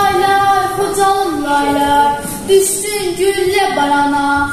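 A girl singing a slow melody solo, holding long notes and sliding from one pitch to the next, with short breaths between phrases.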